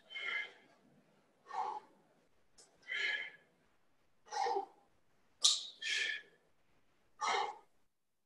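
A man's sharp, forceful exhalations timed to one-arm kettlebell snatches, about one every second and a half, with a quick double breath a little past the middle: exertion breathing paced with each rep.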